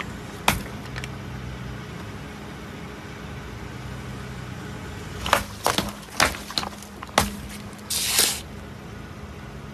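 Car engine running steadily at low speed while a tyre crushes objects. There is a single sharp crack about half a second in, a burst of cracks and crunches from about five to seven seconds, and a short hissing crunch about eight seconds in.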